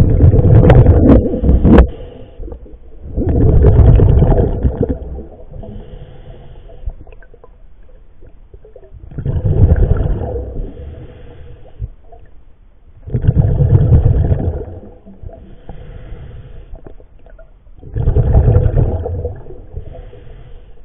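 A scuba diver breathing underwater: five loud bubbling rumbles of exhaled air from the regulator, each about two seconds long and four to five seconds apart, with a fainter hiss in the gaps.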